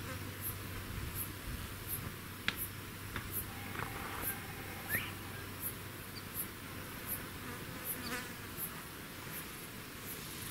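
An insect chirping high-pitched at an even pace, about three chirps every two seconds, over a steady outdoor hiss. A few short chirps come through in the middle, one rising about five seconds in.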